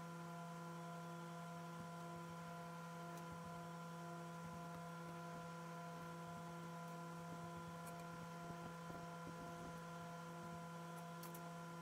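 Faint steady electrical hum made of several fixed tones, one of them pulsing on and off, with a few faint light ticks scattered through it.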